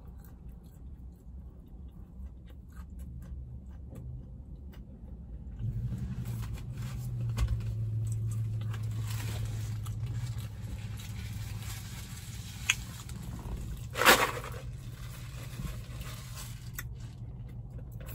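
Quiet eating and handling noises in a car over a low steady hum, with scattered faint clicks. About fourteen seconds in there is one louder, brief rustle or scrape.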